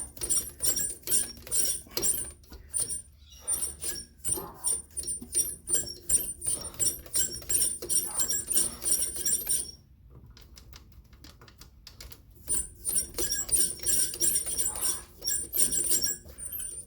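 Rapid metallic ratcheting clicks, about four a second, each with a light ringing tinkle, from hand tool work on a small threaded metal part; they stop for a couple of seconds after about ten seconds, then resume.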